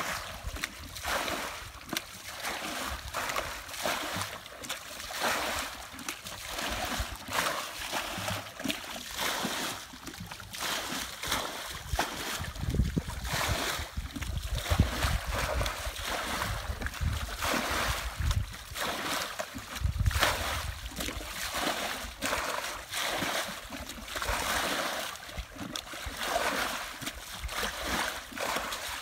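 Muddy water sloshing and splashing again and again as buckets scoop it up and throw it out of a shallow rice-field ditch. There are a few low rumbles around the middle.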